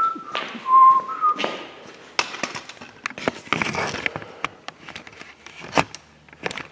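A man whistling a few short held notes in the first second and a half, followed by scattered clicks, knocks and rustles of movement, with one sharp click near the end.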